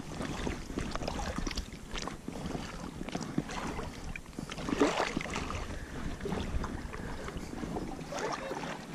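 A small hooked fish splashing at the surface as it is reeled in and swung out of the water, with irregular clicks and knocks of the tackle being handled; the loudest splash comes about five seconds in.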